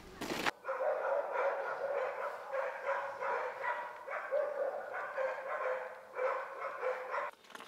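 A dog barking and yelping in a quick run of short, pitched calls, starting about half a second in and stopping just before the end.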